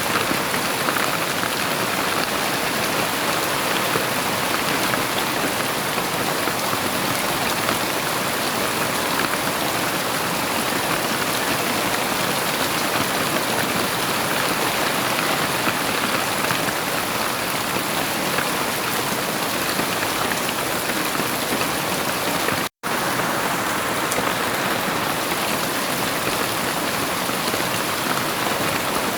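Heavy rain falling steadily, a dense even hiss of drops with no thunder. The sound cuts out for a split second about three-quarters of the way through, then resumes.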